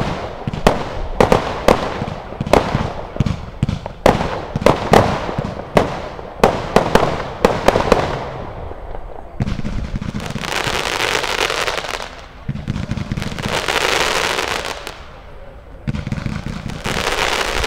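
Consumer fireworks battery (Triple X) firing: a rapid string of sharp reports, several a second, for about eight seconds, then three long waves of dense crackling hiss.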